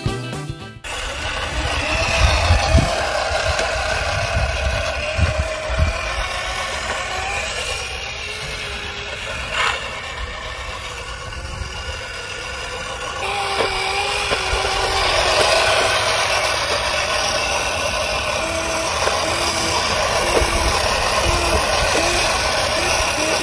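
Razor E100 electric scooter's motor whining as it is ridden, its pitch shifting with speed, over a low rumble.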